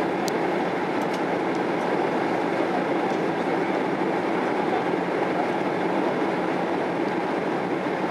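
Steady cabin noise of a Boeing 767-300 airliner on final approach, with the engines running and air rushing over the wing and its fully extended flaps. A few faint clicks come in the first second.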